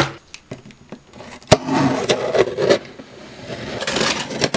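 A cardboard shipping box handled on a wooden table: a sharp knock about a second and a half in, then cardboard scraping and rubbing. Near the end comes a short rising hiss as a blade cuts into the packing tape to open the box.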